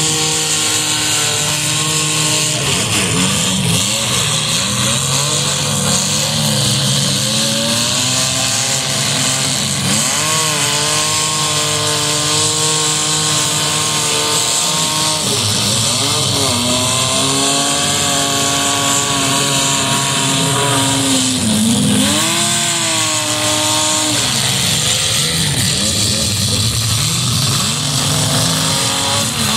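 Demolition derby car engines revving hard, their pitch rising and falling again and again as the cars spin their wheels and shove each other.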